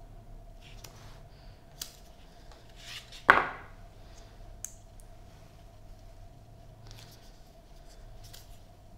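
Packaging being handled during an unboxing: scattered small clicks and rustles, with one loud sharp clack about three seconds in, over a faint steady hum.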